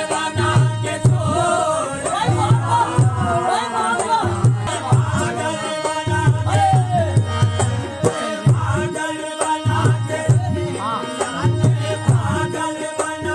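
Qawwali music: tabla keeping a steady rhythm under a harmonium, with a melody line that slides in pitch over it.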